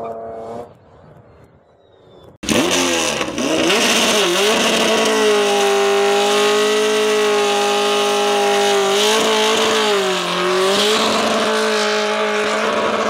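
Motorcycle doing a burnout: the engine held at high revs with the rear tyre spinning on the pavement, a steady high engine note over tyre hiss that starts abruptly a couple of seconds in and sags briefly twice. In the first second, the tail of a car burnout fades out.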